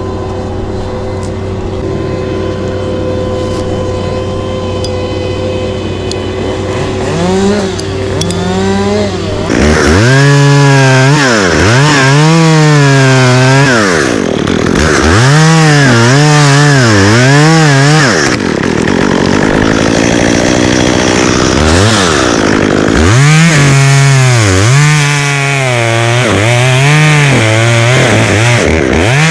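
A two-stroke chainsaw cutting wood: a steady engine hum for about the first nine seconds, then the saw revs up and its pitch rises and falls again and again as it bogs in the cut and frees up, with a few short pauses.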